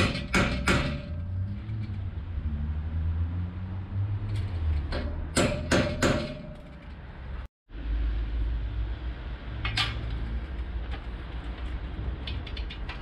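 Metal clanking and knocking as an aluminium shower frame is handled and fitted against a steel roof rack: quick runs of knocks with a short ring, at the start and again about five to six seconds in, and a single knock near ten seconds, over a steady low rumble.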